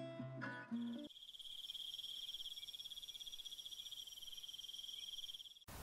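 Acoustic guitar music ends about a second in, giving way to a high, steady, fast-pulsing insect trill of the cricket kind that cuts off abruptly near the end.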